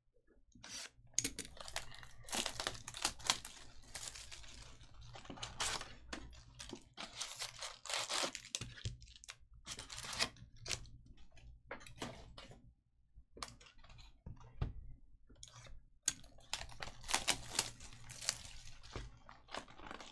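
Cardboard trading-card boxes being cut and torn open and handled, with foil card packs crinkling as they are pulled out: a run of irregular tearing, scraping and rustling noises.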